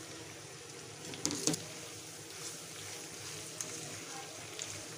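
Chicken macaroni sizzling softly in a pan while a spoon stirs it, with two sharp clinks of the spoon against the pan just over a second in.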